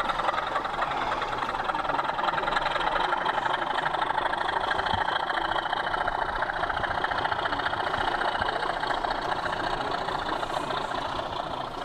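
Model train running along an exhibition layout: a steady, fast buzzing rattle of its motor and wheels on the track, fading near the end as it moves away.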